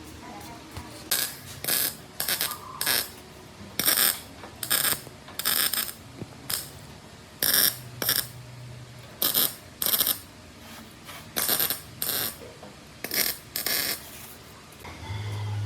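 Repeated sharp clicks or knocks, mostly in pairs, coming at an uneven pace of roughly one pair a second.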